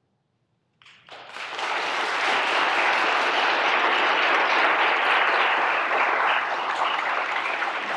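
Near silence for about a second, then an audience breaks into applause that builds quickly and holds steady.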